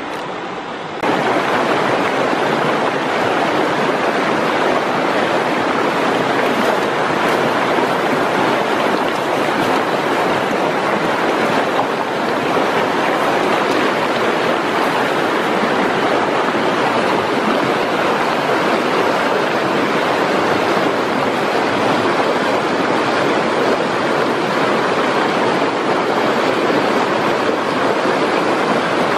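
Shallow, fast-flowing river rushing steadily. The sound starts suddenly about a second in.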